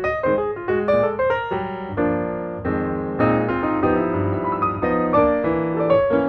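Background music: piano melody played over steady chords.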